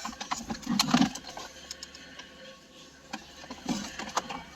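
Scattered clicks and rustling of plastic car interior trim and wiring being handled and refitted.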